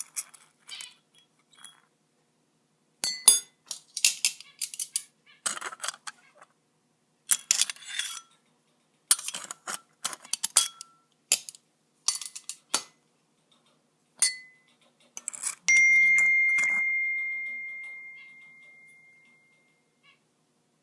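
Pennies clinking and rattling against their container as they are stirred in salt and vinegar. About 15 s in, one sharp clink leaves a clear ringing tone that fades away over about four seconds.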